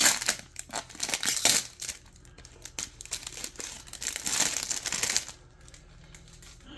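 Packaging wrap being crinkled and torn by hand while a box's seal is opened, in two bouts of rustling, the second about four seconds in.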